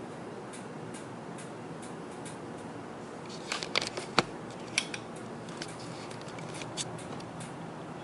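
Irregular faint clicking from a laptop's mechanical hard drive working through a slow Windows boot, over a steady background hiss. About halfway through there is a short cluster of louder clicks and knocks as the camera is moved.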